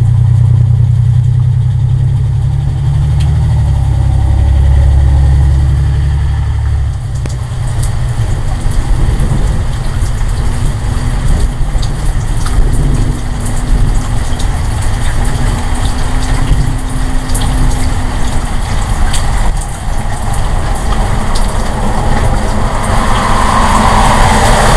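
Deep, steady engine-like rumble, loudest for the first seven seconds and then weaker, with a faint steady hum coming in about ten seconds in and a few light clicks.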